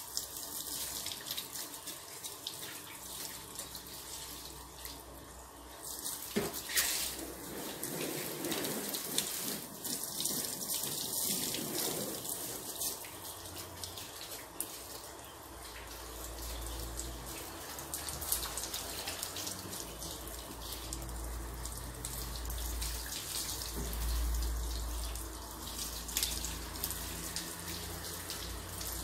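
Water spraying and splashing onto a car's body as it is washed, a steady hiss. A low rumble joins about halfway through.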